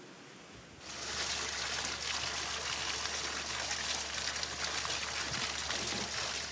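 Water spilling steadily over the rim of a stone fountain basin and splashing into a metal basin below, starting suddenly about a second in.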